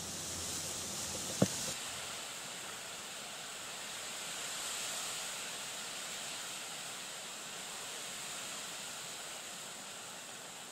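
Steady wind and lapping water on a choppy lake, a plain even rush of noise. A single short, sharp knock about a second and a half in.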